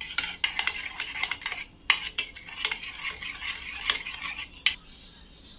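A metal spoon beating thick seasoned curd in a ceramic bowl: quick, irregular clinks and scrapes against the bowl. The beating stops shortly before the end.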